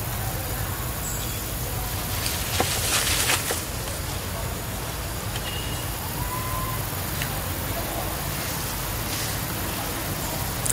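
Outdoor background with a steady low rumble like distant vehicle traffic. A brief burst of hissing noise comes about two to three seconds in, and a couple of short, faint whistle-like notes come later.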